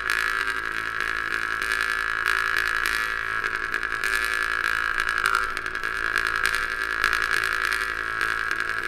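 Berezenko "Om" jaw harp played in a quick, even rhythm, a steady drone with a bright overtone melody above it that changes pitch a few times.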